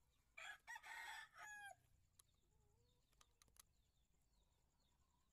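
A rooster crowing once, faintly, about half a second in, for roughly a second and a half, its pitch falling at the end of the call.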